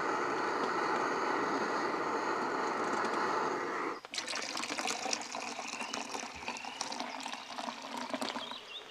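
Steady hiss of a camping stove burner under a stainless steel coffee press of bubbling coffee. About four seconds in, this cuts to hot coffee being poured from the pot into a metal mug, a running, splashing fill.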